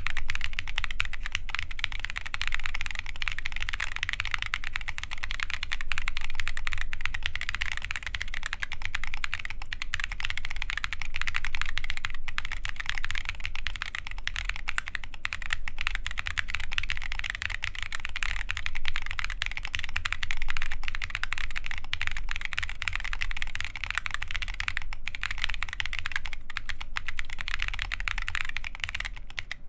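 Steady, continuous typing on an Adélie mechanical keyboard with lubed Holy Boba tactile switches, KAT Alpha keycaps and a full carbon-fibre plate: a dense stream of keystrokes without pauses.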